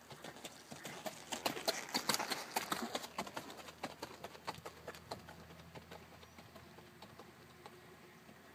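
Quarter Horse's hoofbeats on sandy arena footing as it is ridden past, loudest in the first few seconds and fading as it moves away.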